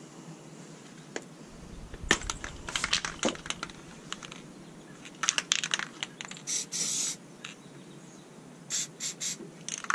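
Aerosol can of black spray paint: a run of sharp clicks, then from about halfway several short hisses of spray, the longest lasting about half a second, painting bare ground metal against rust.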